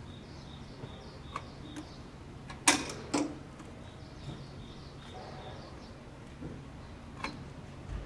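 Handling noises from an air conditioner's control board and wiring: a few light clicks, and two sharp clacks a bit under three seconds in, about half a second apart, as connectors and wires are worked by hand. Underneath runs a steady low hum with faint repeated high chirping.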